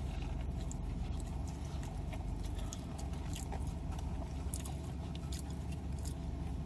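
Close-up chewing of a biscuit dipped in ranch: soft, irregular mouth clicks and smacks over a steady low hum.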